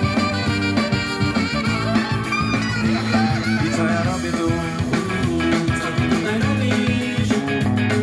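Sony CFD-380L boombox playing an FM radio broadcast of a Polish pop song through its built-in speakers, here in an instrumental passage between sung lines.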